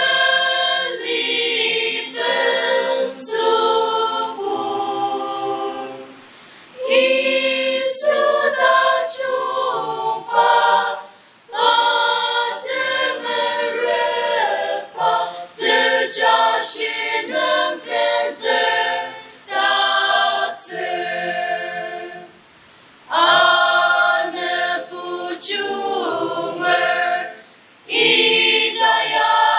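Mixed choir of men's and women's voices singing a hymn in held chords, phrase by phrase, with short breaks between phrases.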